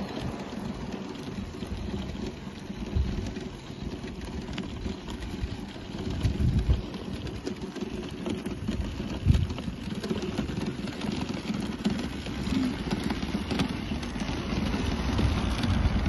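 Outdoor street noise: wind buffeting the phone microphone in irregular low gusts over a steady hiss of traffic, growing louder near the end as a car drives past.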